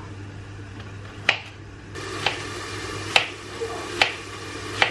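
Kitchen knife slicing garlic and courgette on a wooden chopping board: five sharp knocks of the blade on the board, roughly a second apart, over a steady low hum.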